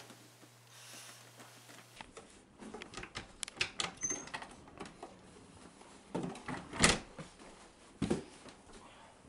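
Faint room tone with a low hum at first. Then someone rummages in a drawer: scattered clicks and knocks of things being moved about, with one louder knock about seven seconds in.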